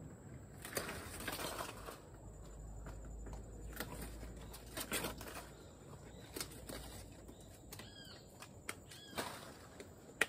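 Cacao tree leaves and branches rustling in short bursts as they are handled and cut with hand pruning shears, with a few sharp clicks. A bird chirps a few times about eight seconds in.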